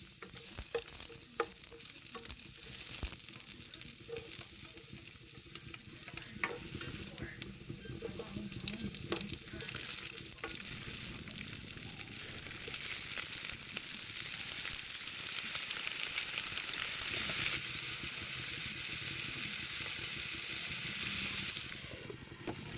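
Food frying and sizzling in a hot pan, with scattered clicks and scrapes of a utensil stirring it. The sizzle drops away shortly before the end.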